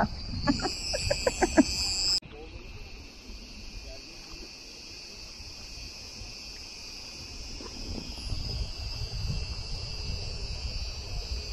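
A chorus of cicadas singing in the pine trees: a steady, high-pitched, unbroken buzz. It drops suddenly in level about two seconds in, then goes on evenly.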